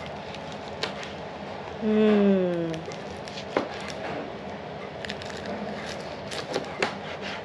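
A kitchen knife slices through a fried ngohiong pork roll in bean-curd skin, and the blade taps the plastic cutting board in a few sharp clicks. About two seconds in, a woman's voice sounds briefly and falls in pitch.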